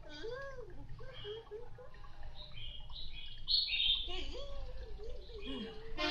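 A cartoon child's voice humming a wavering, playful tune, with a quick run of high chirping notes around the middle.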